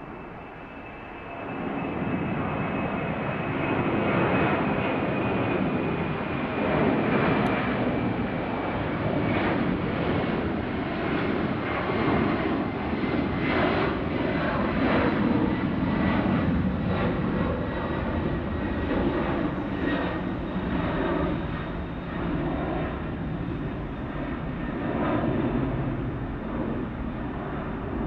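Four jet engines of a China Airlines Boeing 747-400 freighter at climb power as it climbs away after takeoff. The loud jet noise comes up sharply about two seconds in and holds, easing a little near the end, with a thin whine slowly falling in pitch.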